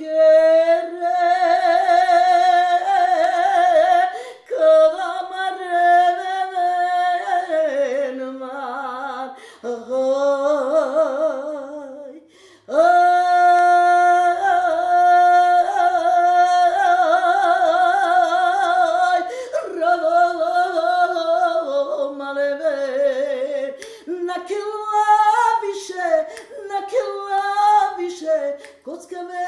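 A woman singing a cappella in a strong solo voice: long held notes with a wavering vibrato and ornamented turns, broken by short breaths a few times, the longest about twelve seconds in.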